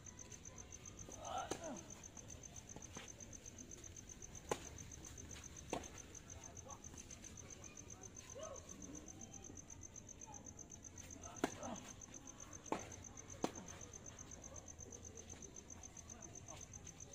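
Crickets trilling steadily in a fast, even pulse. Over it, about six sharp knocks of a tennis ball being struck, the loudest about four seconds in and three in quick succession later on.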